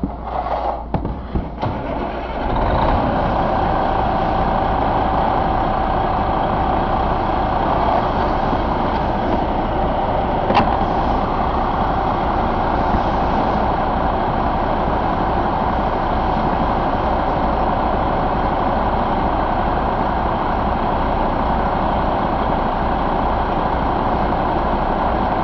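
Detroit Diesel Series 60 14.0-litre inline-six diesel being cranked, catching after about two seconds and settling into a steady idle. A thin steady whine sounds for several seconds just after it starts.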